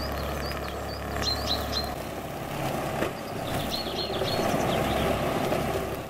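Tractor-driven flail verge mower running steadily as it cuts roadside grass, a low drone that eases for a moment midway and then returns. Short high chirps sound over it several times.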